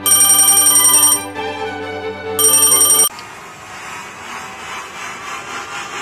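Electric bell-style ringing sound effect, trilling in two bursts, a longer one then a shorter one, over background music; after the second ring it gives way to a quieter steady background.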